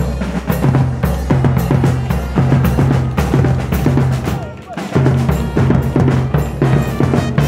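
Marching drum band of bass drums, snare drums and hand cymbals playing a fast, steady beat, with a brief drop about four and a half seconds in.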